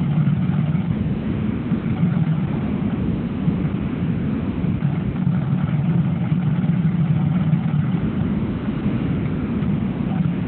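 Tractor engine running steadily as it tows a fairway aerifier across turf.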